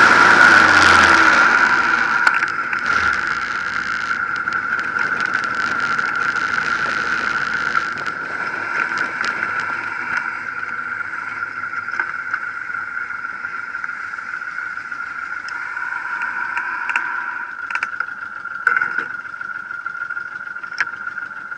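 Honda VTX 1800 V-twin motorcycle slowing, its engine note falling over the first couple of seconds, then running quietly at low speed, with a steady high-pitched whine throughout and a few light clicks near the end.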